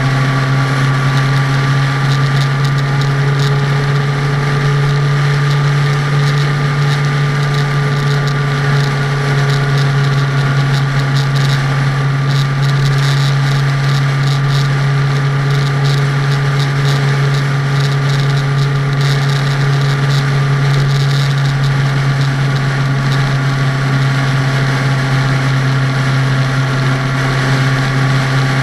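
Vehicle running at steady speed, heard from inside: a constant loud low drone with a few faint whining tones above it that drift slightly in pitch, over road and wind noise.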